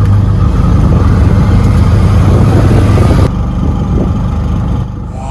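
Loud, steady rumble of motor-vehicle engine and road noise, dropping suddenly to a quieter rumble a little over three seconds in.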